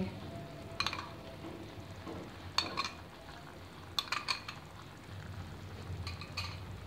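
Metal spoon clinking and scraping against a glass bowl as yogurt is scooped out into the pan: a few sharp clinks in small clusters, about every second or two, over faint steady background noise.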